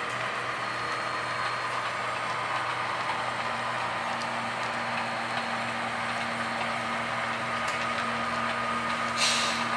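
HO scale model freight cars rolling slowly along the track with a steady locomotive engine hum underneath, and a short hiss near the end.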